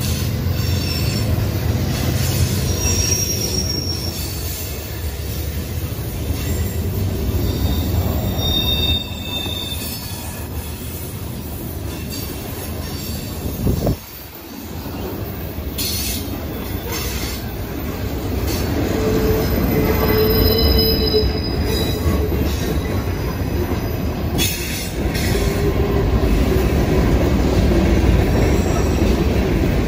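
CSX freight train rolling past: the steady rumble of the cars on the rails, with short high squeals of steel wheels coming and going. The sound drops out and changes abruptly twice where the shot changes.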